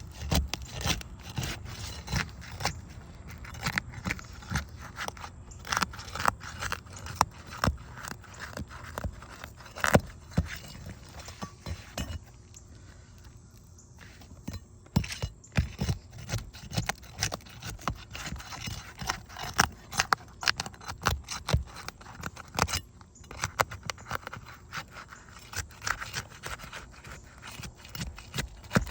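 A metal tool scraping and clicking against asphalt roof shingles in irregular strokes as the shingles are lifted and their nails pried out, with a quieter stretch about halfway through.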